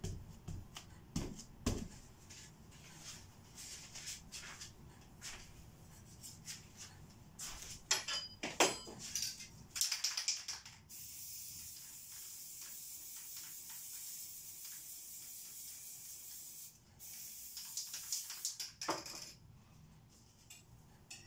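Aerosol spray-paint can hissing in a long steady spray of about six seconds, broken once briefly near the end, after a run of small clicks and knocks from cans and tools being handled.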